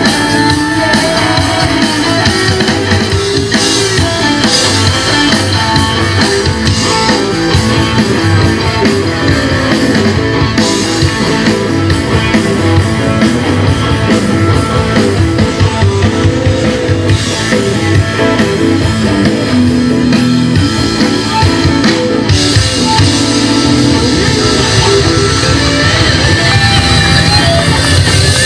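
Live rock band playing loudly: electric guitars over a drum kit, without a break.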